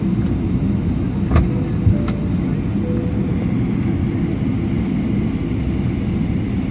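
Steady low rumble of cabin noise inside a Boeing 777-300ER on the ground before takeoff, its engines running, with two short knocks about a second and a half and two seconds in.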